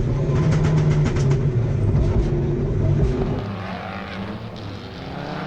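Mitsubishi Lancer Evo VI rally car's turbocharged four-cylinder engine running hard under load, heard from inside the cabin. A quick series of sharp pops from its anti-lag misfiring system comes in the first second and a half. About three seconds in the engine drops to a quieter, wavering note.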